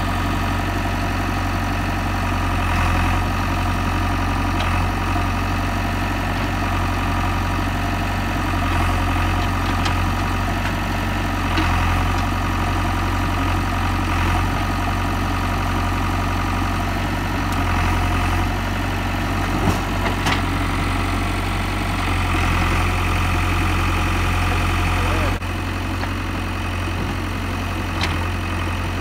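JCB 3DX backhoe loader's diesel engine running steadily under hydraulic load as the backhoe digs. It swells and eases every few seconds, with a few short knocks. The level drops suddenly about three-quarters of the way through.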